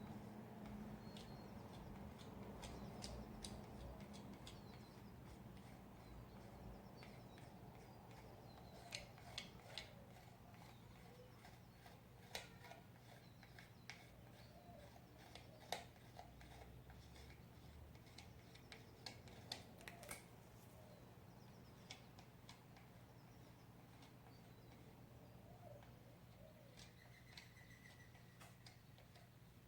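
Near silence with a low steady hum, broken by faint scattered clicks and small taps, most of them in the middle of the stretch.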